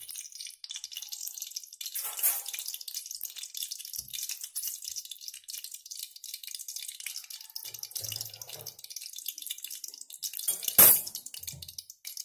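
Ghee heating in an aluminium kadai, crackling and spitting steadily as it melts. A single sharp knock about eleven seconds in, the loudest moment.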